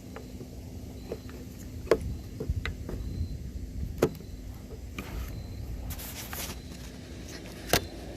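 A few sharp clicks and knocks of hard plastic parts being handled, with a short scraping rustle between them: headlight bulb sockets being worked into a headlight housing. A steady low hum sits underneath.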